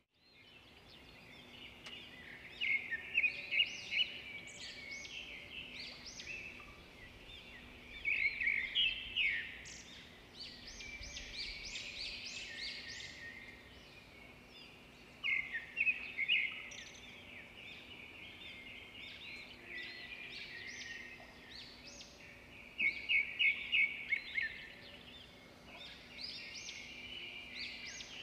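A songbird chirping and trilling in short bouts every several seconds, over a faint steady hum.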